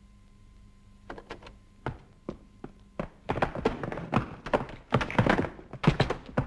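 Sharp wooden knocks and thuds from a door and boots on a plank floor: a few scattered knocks, then a dense run of thumps from about three seconds in.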